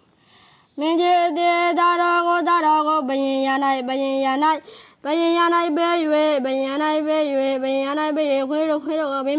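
A Buddhist monk's voice chanting a Burmese sermon in a sung, melodic style, holding long wavering notes. Two long phrases, with a short breath break about halfway through.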